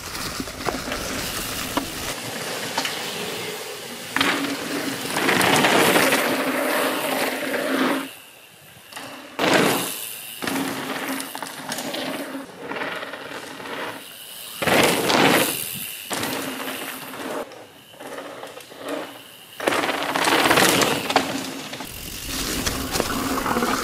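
Full-suspension mountain bike ridden over a forest trail, its tyres crunching and crackling through dry fallen leaves and over dirt. The noise swells several times as the bike passes close and changes abruptly between short clips.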